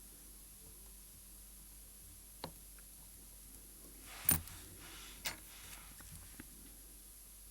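A few small, sharp clicks and taps of watchmaker's tools against a watch movement and its holder, the loudest about halfway through with a brief rustle of handling around it.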